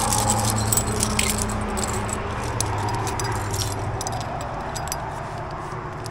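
Climbing carabiners and trad gear on the harness clinking and jangling as they are handled, in a string of small, irregular metallic clicks over a steady low rumble.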